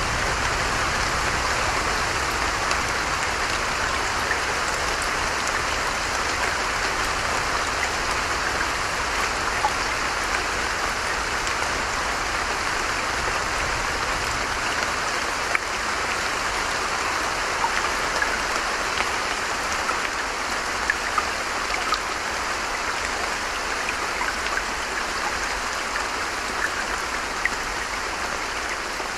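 Creek water running steadily, a constant rushing with scattered small drip-like splashes.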